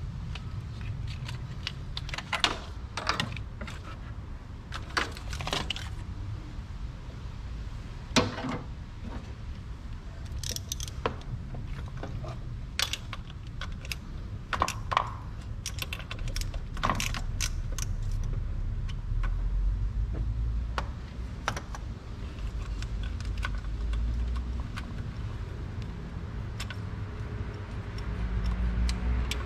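Metal hand tools clinking and tapping in irregular, sharp clicks, some ringing briefly, over a steady low rumble.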